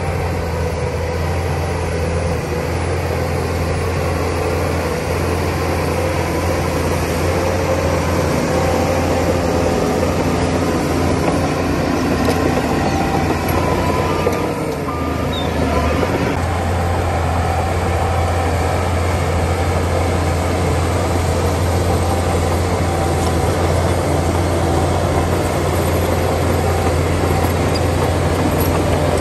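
Shantui DH17 crawler bulldozer's diesel engine running steadily under load as it pushes soil with its blade, its note dipping briefly about halfway through.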